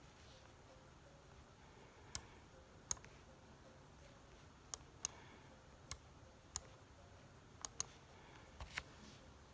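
About ten sharp, irregular clicks of a computer mouse against near silence, a few of them in quick pairs.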